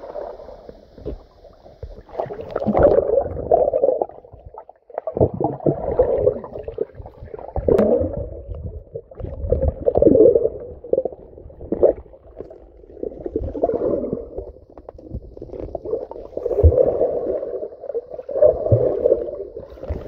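Muffled underwater rumbling and gurgling of river water moving around a submerged camera, swelling and fading every couple of seconds.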